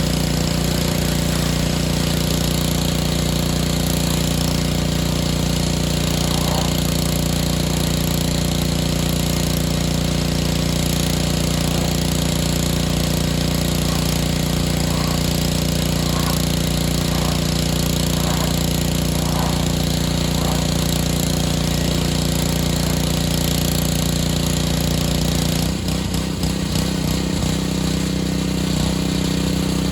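Pressure washer running steadily: a small engine's steady drone under the hiss of the spray, wavering near the end.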